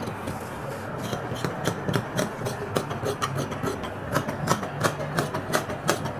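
Large tailor's scissors cutting through brocade saree fabric: a steady run of short snips, with the cloth rustling and sliding as it is cut.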